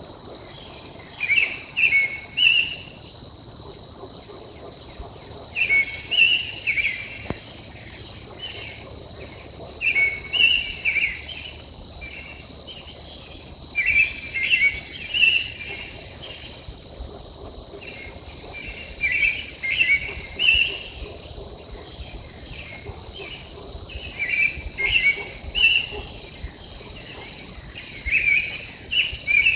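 An unidentified songbird singing in the pre-dawn dark: short, complex warbled phrases, about one every four seconds, over a steady high-pitched drone.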